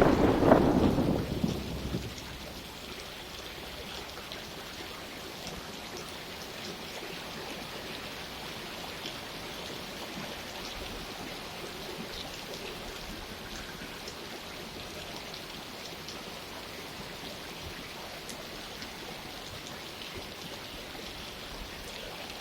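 Steady rain falling, with many small drop ticks over an even hiss. The rumble of a thunderclap dies away over the first couple of seconds.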